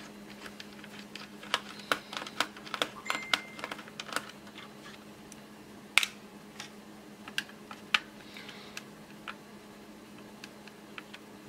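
Scattered light clicks and taps of a small screwdriver working screws out of a laptop's plastic base, with two sharper clicks about six and eight seconds in. A faint steady hum runs underneath.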